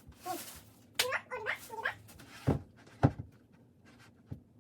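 A dog whimpering briefly in a few short wavering whines, then two dull knocks about half a second apart.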